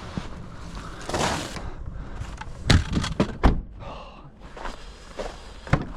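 A quick cluster of hard thuds and knocks around the middle, one more knock near the end, over a brief scraping or crunching noise about a second in.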